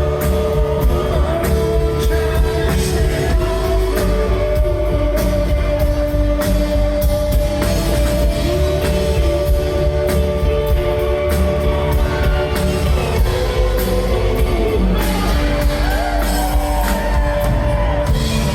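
Live rock band performing with sung vocals, steady drums and bass, in a large hall.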